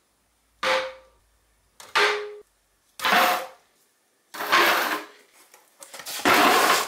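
Metal paint tins set down one after another on a steel workbench: five sharp clunks, each ringing briefly. The last and longest comes as a cardboard box of tins is put down on the bench near the end.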